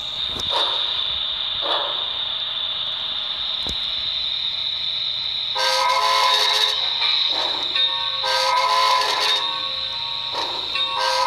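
Sound-equipped HO-scale model of a New York Central J-1 Hudson steam locomotive: a steady high whine with a few soft chuffs early on, then the chime steam whistle blowing long blasts about six and eight seconds in, with another starting near the end.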